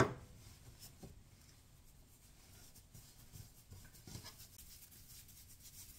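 Hands pressing and patting a soft ball of dough on a floured wooden board, faintly, with a few soft taps and rubbing.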